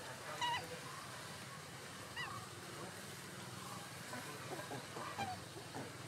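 A few faint, short calls over a quiet outdoor background: the loudest about half a second in, another about two seconds in, and softer ones later.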